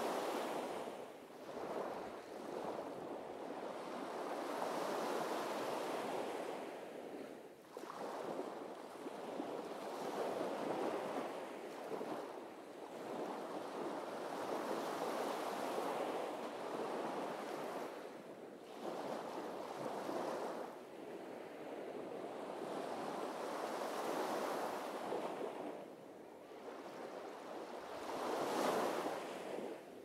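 Sea waves breaking on a sandy beach, the surf swelling and falling back every few seconds, with the loudest break near the end.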